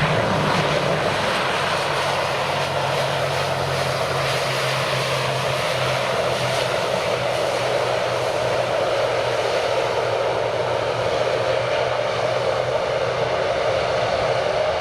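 Airliner engines running steadily, a loud constant noise over a low hum.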